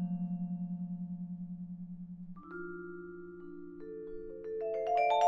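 Vibraphone with its motor vibrato on: a low note rings and fades, pulsing about seven times a second. A soft chord comes in about halfway. Near the end a quickening, rising run of mallet strokes on the metal bars builds in loudness.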